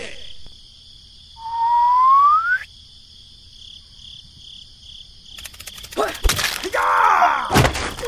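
Cartoon sound effects: a rising whistle about a second and a half in, then a few sharp thunks with a comic groaning voice near the end, over a steady high background hiss.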